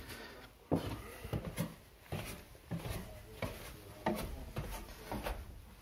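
Footsteps in boots going down a wooden staircase: a dull knock on each tread, a little more than one a second.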